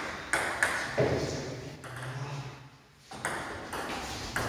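Table tennis ball clicking off rackets and the table during a doubles rally: a quick run of hits in the first second, a lull of about two seconds, then more hits.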